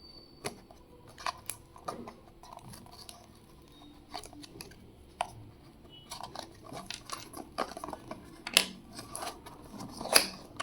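Scattered clicks, taps and light rustling of a small earbud retail box and its packaging being handled and opened. There are two sharper knocks in the second half.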